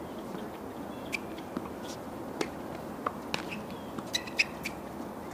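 Sharp pops of a tennis ball struck by rackets and bouncing on the hard court during a doubles rally, about half a dozen spread over a few seconds, with a quick cluster of short pops about four seconds in, over a steady background hiss.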